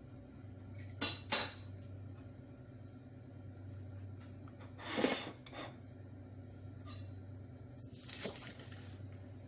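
Pots and kitchen utensils clattering during cooking: two sharp clinks about a second in, a longer scraping clatter midway and another near the end, over a steady low hum.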